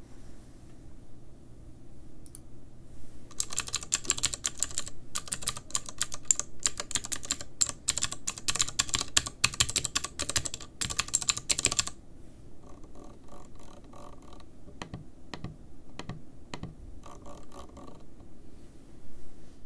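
Keycaps of a custom mechanical-switch numpad pressed in a fast, dense run of clacks for several seconds. Then comes a longer stretch of lighter, softer ticks as the numpad's knob, a rotary encoder, is turned.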